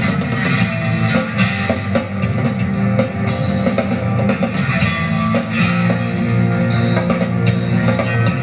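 Live band playing rock music: electric guitar and bass over a drum kit, a Yamaha kit with Zildjian cymbals, keeping a steady beat.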